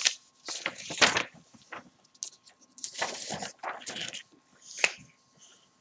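Irregular rustling and short knocks of paper and camera being handled as the drawing sheet is changed.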